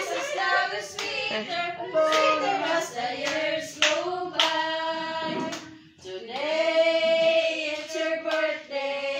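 A group of people singing a birthday song together, women's and children's voices, with hands clapping along.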